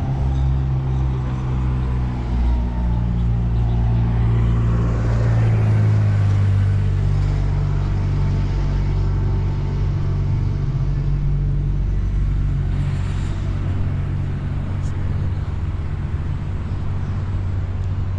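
Street traffic: a motor vehicle's engine running close by, a low steady hum whose pitch shifts about five seconds in, over general road noise.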